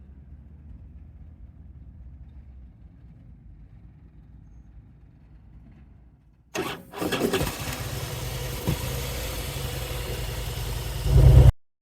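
2010 Harley-Davidson Softail Custom's Twin Cam 96 V-twin starting: after a faint low hum, about six and a half seconds in it catches suddenly and settles into a steady idle, swelling louder just before it cuts off. The engine has just had its starter compensator replaced with a Screamin' Eagle unit to cure the warm-start trouble and noise.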